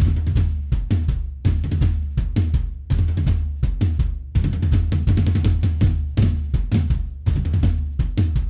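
Background music driven by drums: a steady beat of kick and snare hits over a deep bass line.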